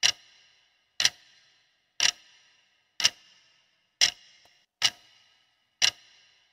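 Countdown timer sound effect ticking about once a second: seven sharp clock-like ticks, each with a brief ring, marking the seconds left to answer a quiz question.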